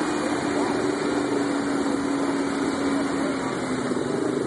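Lifted Toyota pickup's engine running at low, steady revs as the truck crawls up a rock ledge, its pitch easing slightly lower over the few seconds.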